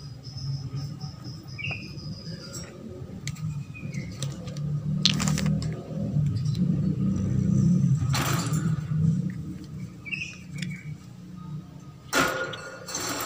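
Holland lop rabbit rummaging in a clay bowl inside a wire cage: a low rough rumble with three short bursts of scraping and rustling, about five, eight and twelve seconds in. Two short high chirps are also heard.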